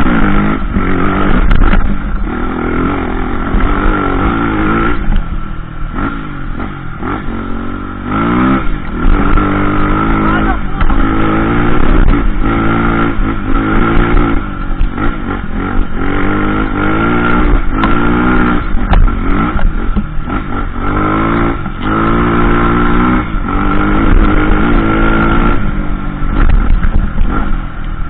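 Trail motorcycle engine running under a constantly changing throttle, its pitch climbing and dropping again and again as it is revved and eased off.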